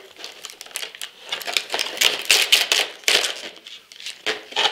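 Clear plastic blister tray crackling and clicking as hands pry accessories out of it: a dense run of quick, sharp clicks, busiest in the middle.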